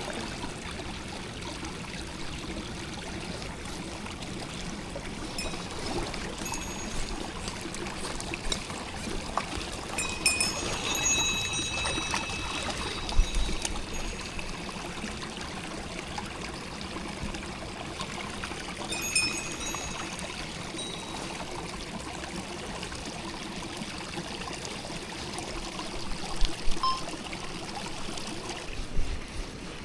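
Mountain stream flowing steadily over rocks, with a few brief high-pitched sounds about ten seconds in and again near nineteen seconds.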